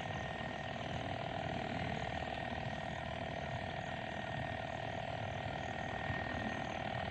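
Motorized sprayer running steadily with a constant whine as its lance sprays herbicide onto weeds.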